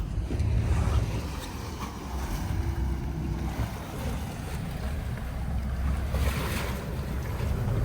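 Wind buffeting the microphone over rushing water on a boat under way at sea: a fluctuating low rumble with a noisy hiss that grows louder for a moment a little after six seconds in.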